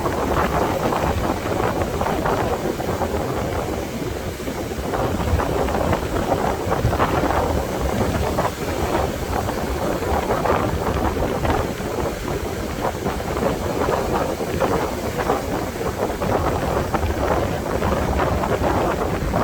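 Strong wind buffeting the microphone with a low, gusty rumble, over the steady wash of ocean surf breaking on the beach.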